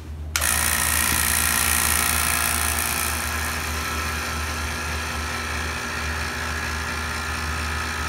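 Vacuum pump of a home milking system switched on, starting suddenly about a third of a second in and then running steadily with a whir, pulling vacuum on the tank for a leak test. It is loudest for the first few seconds, then settles slightly. The system is not building up enough vacuum because of a leak.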